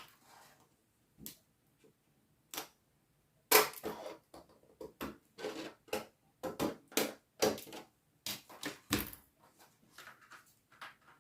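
Irregular run of short clicks and scrapes from craft materials being handled, sparse at first and then dense, with the sharpest click about three and a half seconds in.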